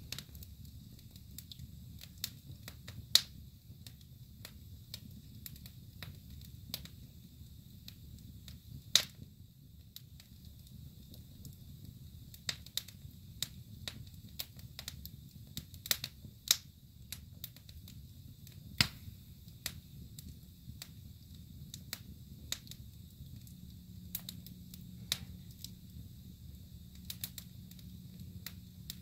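Wood fire burning in a fireplace: irregular crackling and sharp pops over a steady low rumble of the flames, with a handful of much louder pops scattered among the small crackles.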